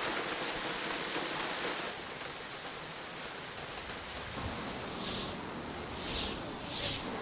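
Steady rushing splash of the Merlion fountain's water jet pouring into the bay. About five seconds in, three quick, sharp swishes of a broom sweeping the paving come roughly a second apart, louder than the water.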